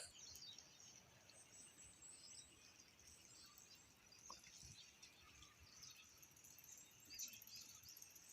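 Near silence: faint outdoor ambience with a few faint, high-pitched chirps, including a short run of rising chirps between about one and two and a half seconds in.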